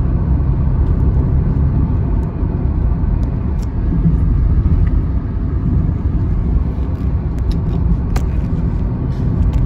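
Steady low rumble of a Kia Carens with a 1.5-litre naturally aspirated engine cruising at about 70 km/h, heard from inside the cabin. The engine turns under 2,000 rpm, and its hum blends with road and tyre noise.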